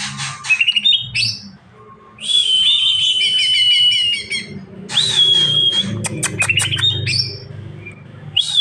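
Greater green leafbird (cucak ijo) singing: quick chattering notes and clicks broken by long, steady, high whistles, one held for about two seconds near the middle and another starting at the end.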